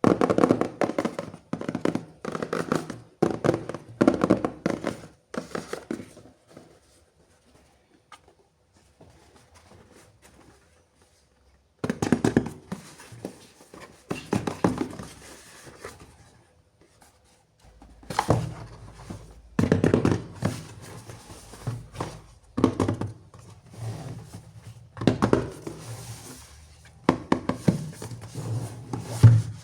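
Hands handling and unpacking toys and their packaging: bursts of close-up knocks, taps and rustles, with a quiet pause of several seconds near the middle.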